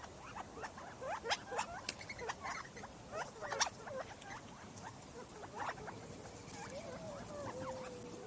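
Many short chirping calls from feeding birds, most likely a group of quail, densest in the first half. A longer, lower wavering call comes in near the end.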